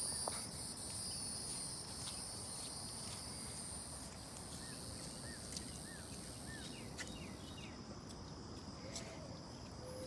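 Insects trilling steadily at a high pitch, with a few short bird chirps in the middle, over a low background hiss.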